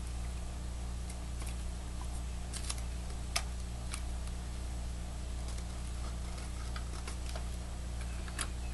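Faint scattered clicks and crackles of painter's tape being pressed and handled around a stack of glass mirror strips, over a steady low hum.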